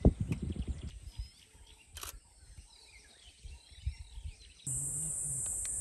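Bush ambience of small birds chirping faintly, with a few low thumps and rumble in the first second. About three-quarters of the way in, a steady high insect drone, like cicadas or crickets, cuts in suddenly.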